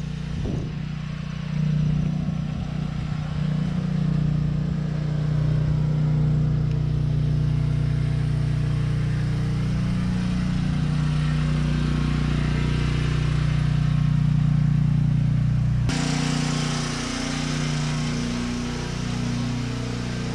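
An engine running steadily at idle, a low hum. About sixteen seconds in the sound shifts abruptly and carries more hiss.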